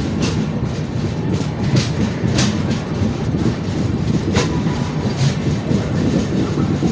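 Train rolling into a station: a steady low rumble of wheels on the rails with sharp clicks and clanks at irregular intervals, the strongest about two and a half seconds in.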